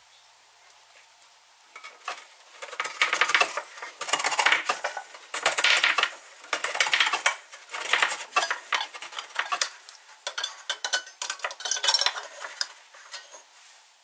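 Victorinox Swiss Army knife's hook-type can opener cutting around the lid of a tin can: short scraping, clicking strokes of steel through tin, about one a second, starting about two seconds in.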